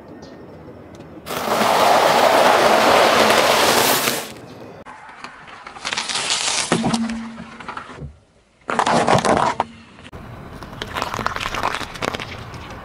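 A car tyre rolling over and crushing things on asphalt, among them a pile of cheese balls and a leek: a long, loud crunching about a second in, then several shorter crunching and cracking bursts.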